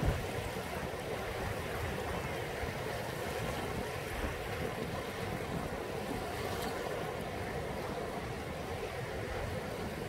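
Small sea waves washing in steady succession onto a sandy beach, with wind buffeting the microphone as a low rumble.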